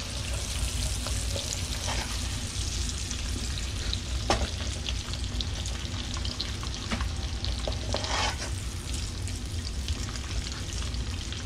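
Sliced smoked sausage sizzling steadily in bacon fat in a pan as it renders out its own fat. Occasional knocks and scrapes of stirring break through, a little stronger about 4 and 8 seconds in.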